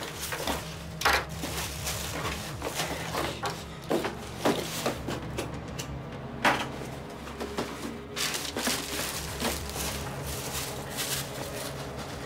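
Irregular knocks and clatter of objects being handled, over a low steady hum.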